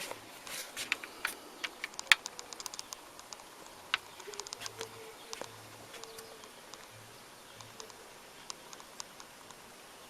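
Irregular light clicks and taps of small plastic parts being handled in a turntable's tonearm drive mechanism during greasing, thickest in the first few seconds and sparser later. Faint short hums come and go under them.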